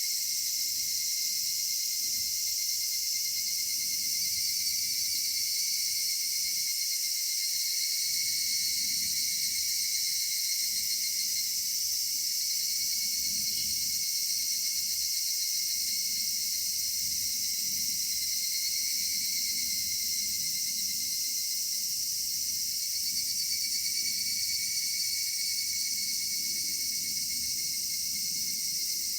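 Chorus of cicadas calling steadily, several high-pitched shrill tones overlapping without a break, some wavering slightly.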